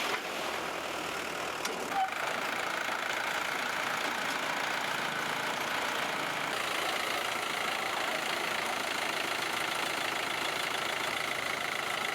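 Swaraj 960 FE tractor's diesel engine running steadily, with a brief knock about two seconds in.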